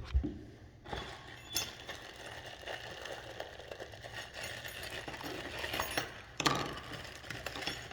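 Drain pipe parts and fittings being handled and fitted: irregular rattling, clicks and knocks, with a few louder knocks about a second and a half in and around six seconds in.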